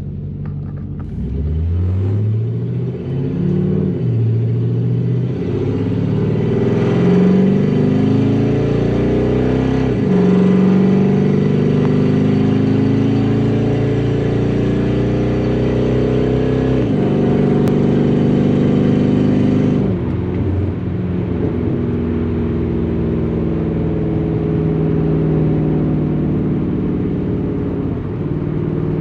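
Truck-derived GM LS V8, swapped into a 2004 Infiniti G35X, pulling away and accelerating hard. Its pitch climbs through each gear and drops sharply at several automatic upshifts, then eases off.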